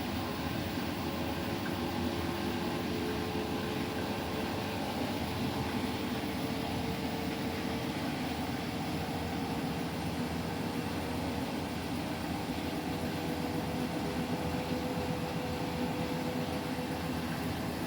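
Washing machine spinning steadily with two pillows balanced in the drum, its motor giving a steady whine over the rush of the drum.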